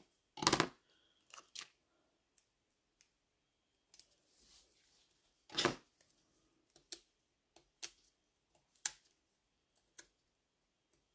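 Scissors snipping through cardstock about half a second in. Sparse small clicks and taps of paper and tools being handled follow, with one louder paper-handling noise near the middle.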